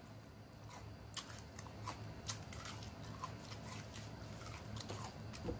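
Close-miked chewing of chicken wings: irregular wet mouth clicks and smacks as meat is bitten and chewed, over a faint steady low hum.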